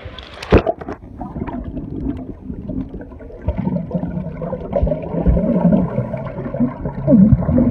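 A splash as the camera goes under the seawater about half a second in, then muffled underwater gurgling and sloshing, with almost no treble.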